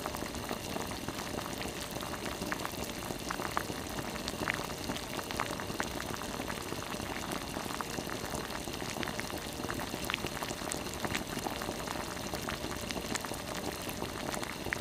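Spicy broth of a gizzard shad braise boiling in a pot: a steady bubbling simmer with scattered small pops as bubbles burst.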